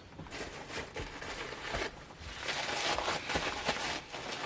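Paper wrapping rustling and crinkling, with a few light knocks, as wrapped ceramic salt and pepper shakers are unwrapped and handled.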